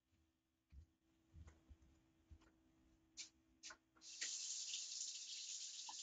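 A faucet is turned on about four seconds in, and water runs steadily into the sink as hands are washed. Before that, a few soft knocks and two sharp clicks.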